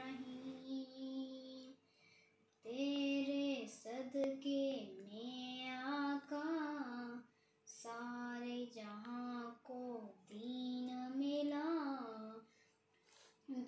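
A young girl singing a devotional naat in long, drawn-out melodic phrases, four of them with short breaths in between.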